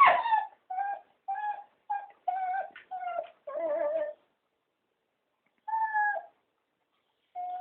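Cocker spaniels whining in a quick string of short, high, pitched calls, then after a pause two more single calls: dogs begging to be taken for a walk.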